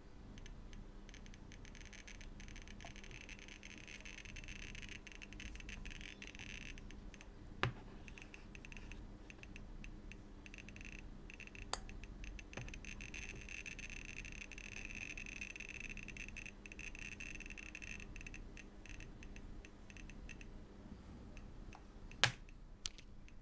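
Homemade Geiger counter with an SBM-20 tube clicking fast and irregularly through a piezo disc as a Soviet Adrianov compass is held against it; the clicks are the tube detecting beta and gamma radiation from the compass's radium-226 luminous paint. A few louder single knocks come through, one near the middle and two close together near the end.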